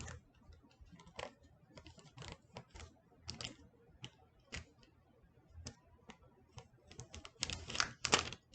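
Slippery plastic wrapping crinkling and crackling in irregular bursts as it is peeled off a new phone, loudest in a flurry near the end.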